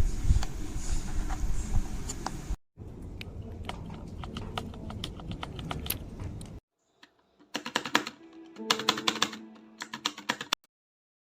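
Rapid typing on a mechanical keyboard fitted with ABS keycaps: quick runs of clicking keystrokes, in three stretches that start and stop abruptly.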